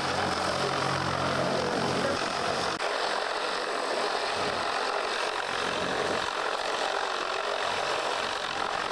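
A turboprop aircraft engine running at idle, a steady rushing hiss, with a low hum that stops about three seconds in.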